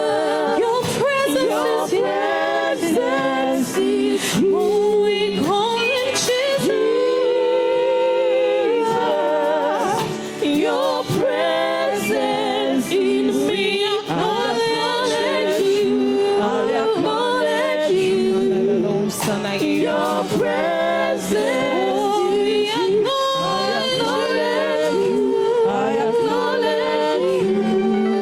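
Worship singing by a group of voices, with several sung lines layered together throughout.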